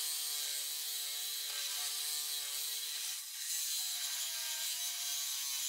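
A DeWalt corded reciprocating saw runs steadily, cutting through a car's steel frame rail with a dull, worn-down blade. It makes a whining, buzzing note with a hiss of blade on metal, and its pitch drops a little about three seconds in.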